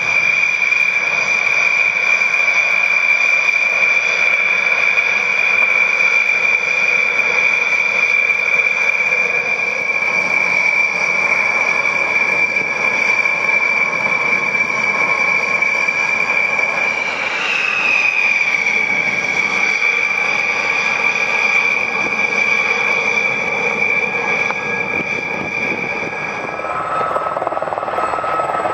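Dassault Rafale fighters' twin M88 turbofans whining steadily at taxi power. About two-thirds of the way through, the pitch rises briefly and then settles. Near the end the high whine cuts off and a lower steady whine takes over.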